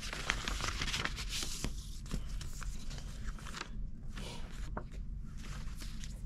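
Paper rustling and crinkling as sheets and a luggage label are pulled out of a paper envelope and handled, with a brief lull about four seconds in.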